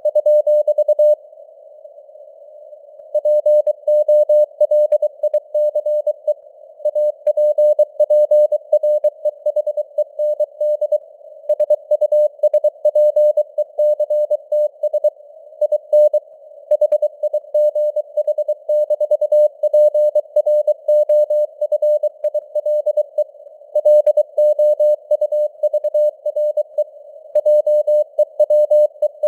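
Morse code at 23 words per minute: a single pure tone keyed on and off in rapid dots and dashes, over a narrow band of simulated radio hiss. About a second in, the keying stops for around two seconds, then resumes.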